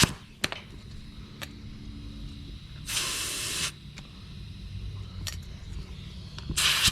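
Short bursts of air hissing at a utility-cart tire's valve stem as the tire's pressure is checked and topped up toward 25 psi. There are two hisses, one about three seconds in and another near the end, with a few light clicks between them.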